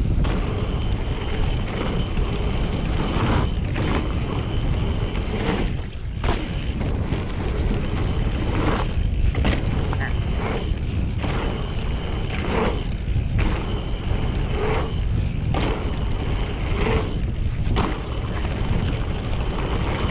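Mountain bike riding through a dirt jump line: steady wind rush on the camera's microphone with tyre and bike noise, easing for a moment every two or three seconds.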